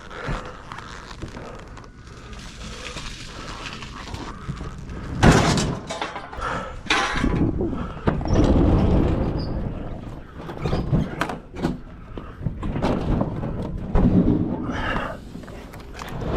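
Knocks, thuds and scraping as a refrigerator is pushed and shifted, with a sharp loud knock about five seconds in.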